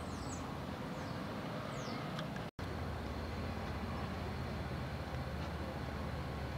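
Steady low hum of road traffic, with a few faint high chirps of birds in the first two seconds. The sound cuts out for an instant about two and a half seconds in.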